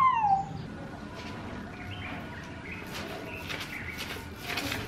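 Faint bird chirps, with soft repeated rasping strokes of a paint roller on the wall in the second half.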